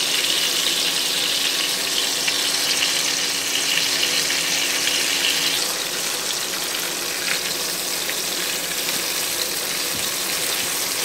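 Salted pork belly frying in oil in a pan over low heat: a steady sizzle with occasional small pops.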